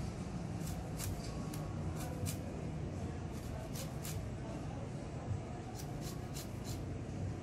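Lemon rubbed over a flat stainless-steel rasp grater for zest: short, sharp scraping strokes in quick runs of two to four, with pauses between. A steady low hum sits underneath.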